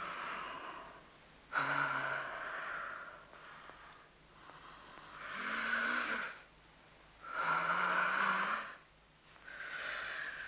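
A woman breathing heavily in a slow, deep rhythm as she sinks into a séance trance: about five long, loud breaths roughly two seconds apart, a few carrying a low moan.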